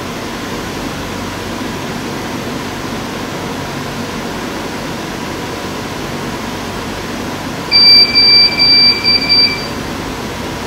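A steady room hum, then about eight seconds in a quick run of about five short, high-pitched electronic beeps lasting under two seconds.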